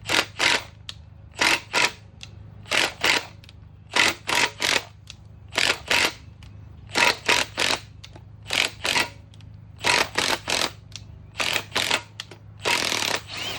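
A wrench backing a header bolt out of an LS cylinder head: short, sharp mechanical bursts, two or three at a time with brief pauses, over a steady low hum.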